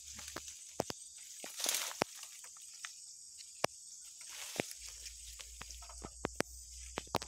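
Footsteps through dry undergrowth: irregular sharp snaps and crackles of twigs and dead fronds underfoot, with short swishing rustles as palm fronds and brush are pushed aside.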